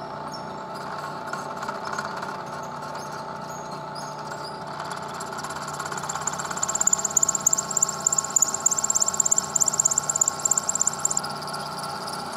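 Lagun vertical milling machine's spindle running steadily with a gear whine, while a fly cutter takes a light hand-fed finishing pass, about ten thousandths deep, across aluminum plate. The cutting comes in about six seconds in as a rapid, rhythmic high-pitched noise and stops near the end.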